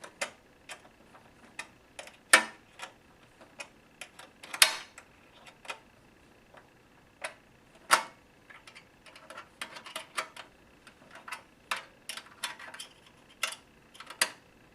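Small metal box-end ignition wrench clicking and clinking against the screw heads as it is fitted, turned and repositioned to snug down screws. Irregular sharp clicks, a few louder ones about 2.5, 4.5 and 8 seconds in.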